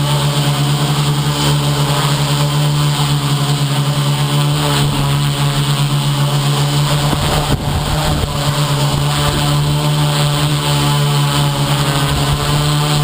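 FPV model aircraft's motors and propellers running with a loud, steady hum; the pitch wavers and dips briefly a little past the middle as the throttle changes.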